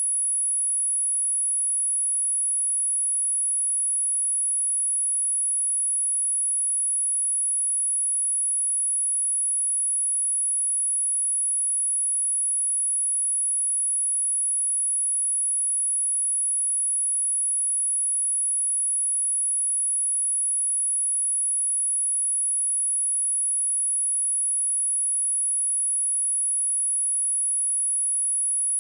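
A steady pure sine-wave test tone at 10231 Hz, a single high-pitched whistle-like tone held at a constant level, used to test a speaker or shake water and dust out of it.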